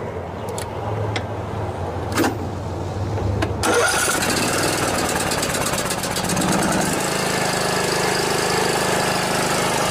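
Briggs & Stratton Intek engine on a riding lawn mower being cranked, catching about three and a half seconds in and then running steadily. This engine has a blown head gasket.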